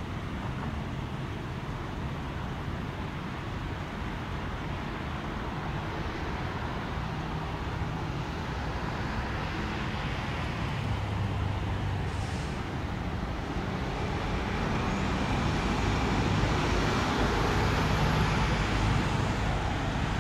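Twin-engine jet airliner on final approach: a steady rushing engine noise that slowly grows louder as the aircraft comes closer, with a thin high whine sweeping in pitch over the last several seconds.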